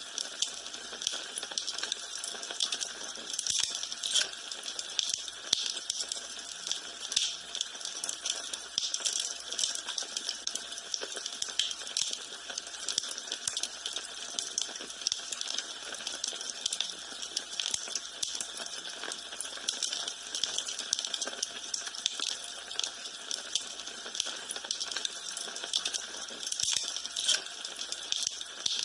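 Wood fire burning in a fireplace, crackling steadily with many small irregular pops and snaps over a soft hiss.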